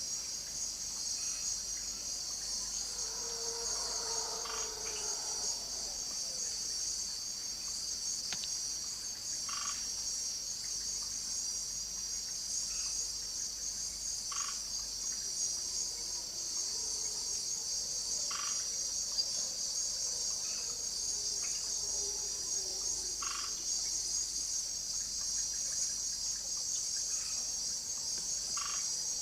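Tropical rainforest at night: a dense, steady high trilling of insects. Short, clipped frog calls come every few seconds, with a faint falling whine now and then.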